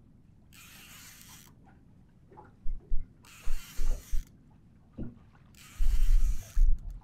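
Multiplier boat reel cranked in three bursts of about a second each, a fast whirring hiss of gears and line as a hooked fish is pumped up from the seabed: rod lifted, then wound down. Wind buffets the microphone in low thumps, loudest during the later bursts.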